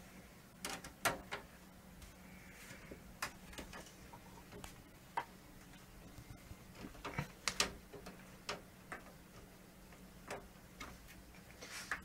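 A screwdriver working a screw into an exhaust fan's unthreaded plastic mounting hole on the back of a PC case: scattered, irregular sharp clicks and ticks as the screw is forced in.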